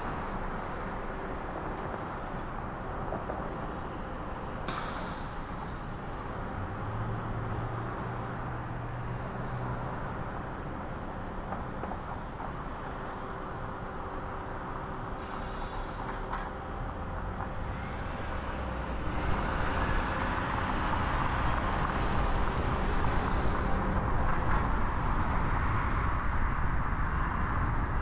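City street traffic heard from a moving car: a steady wash of engine and tyre noise, with two short sharp hisses. The noise grows louder about two-thirds of the way through.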